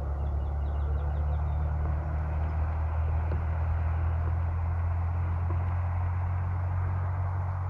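A steady, loud low engine hum from a passing motor vehicle or motorboat, with a few faint bird chirps about a second in.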